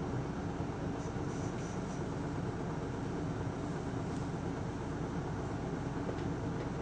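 Interior sound of an Isuzu Erga city bus running: a steady low diesel-engine and road rumble, with a few faint short high chirps between one and two seconds in.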